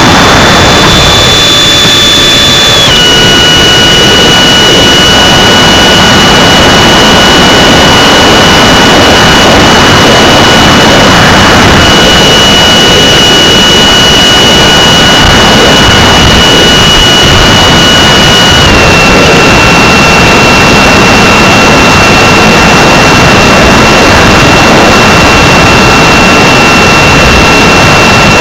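Radio-controlled model airplane's motor and propeller heard from on board in flight: a loud, steady rush of propeller and wind noise with a high motor whine. The whine steps down in pitch twice, about three seconds in and again a little past the middle.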